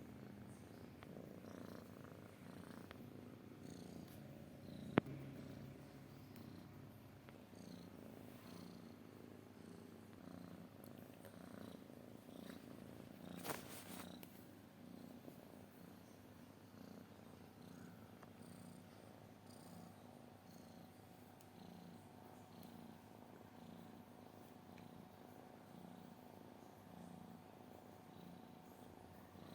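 Domestic cat purring faintly and steadily in a repeating rhythm. There is one sharp click about five seconds in and a brief burst of noise around the middle.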